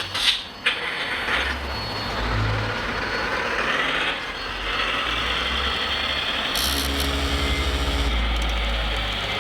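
Radio-controlled construction models whirring: small electric motors and a hydraulic pump running steadily, with a few sharp clicks in the first second.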